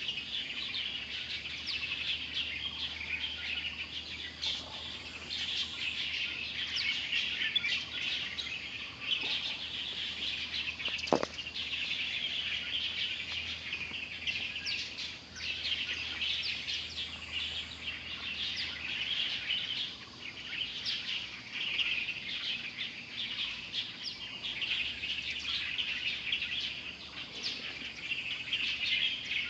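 Wild birds chirping and twittering in a dense, continuous chorus, with one brief knock about eleven seconds in.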